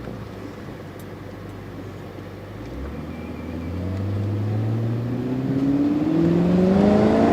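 BMW V8 engine under light load, then accelerating from about three seconds in, its note rising steadily and getting louder toward the end. The engine has a hole in its exhaust, which makes it louder than the quiet factory sound.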